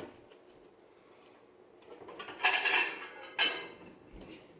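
Dishes clattering and clinking as a plate is taken out, with a longer rattle about two and a half seconds in and a sharper clink about a second later.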